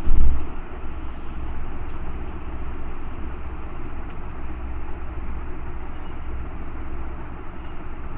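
Steady background noise picked up by the microphone, a low rumble with hiss over it. There is a loud thump just after the start and a few faint ticks later on.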